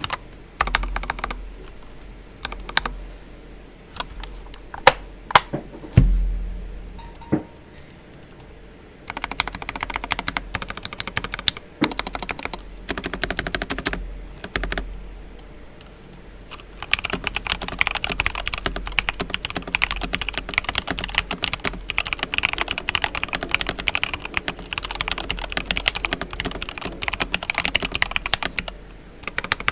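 Varmilo Koi mechanical keyboard with stock, unlubed Tealios V2 linear switches being typed on. It starts with scattered single keystrokes and a few louder strokes, one with a deep thump about six seconds in, then short runs of typing, then steady fast typing from a little past halfway.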